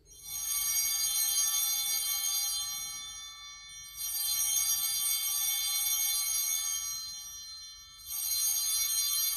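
Altar bells rung three times, about four seconds apart, each ring held for a moment and then fading, marking the elevation of the consecrated host at Mass.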